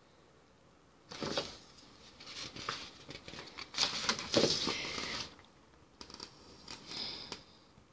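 Picture-book pages being turned by hand: paper rustling and flapping in several bursts from about a second in until about five seconds, then a fainter rustle near the end.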